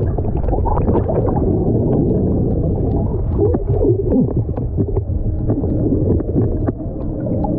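Underwater sound picked up by a submerged camera: a steady low rumble with scattered clicks and crackles, and a brief wavering pitched sound about three and a half seconds in.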